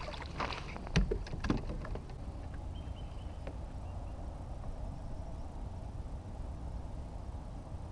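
A few sharp knocks and a clatter about a second in as a netted bass is swung into a small boat and hits the hull, then a steady low rumble of wind and water around the boat.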